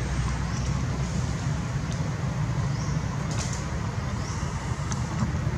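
Steady low rumble and hiss of background noise, with a few faint short high chirps and soft clicks.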